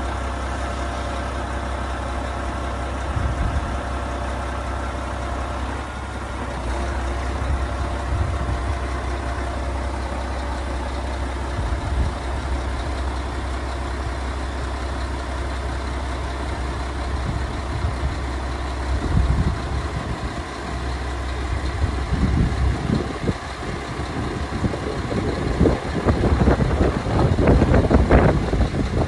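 Scania R480 truck's diesel engine running steadily while it powers the Palfinger PK 42502 loader crane as the boom telescopes out, with a higher whine over the first few seconds. Irregular knocks and rattles grow louder in the last several seconds.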